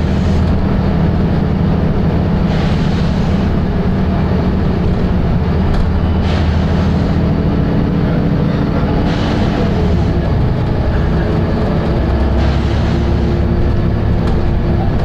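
Volvo B7RLE bus's six-cylinder diesel engine running with a steady, loud drone, with several short bursts of hiss over it.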